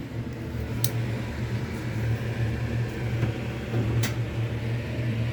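Gas stove burner left running with a steady low hum, because its control will not turn off, with two sharp clicks, about a second in and about four seconds in, as the knob or lever is worked.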